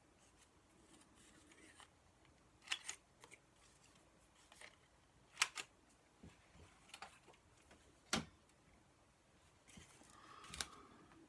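Crop-A-Dile corner chomper punch rounding the corners of a paper piece: a sharp snap every two to three seconds, four main ones, some closely doubled, with light paper handling between.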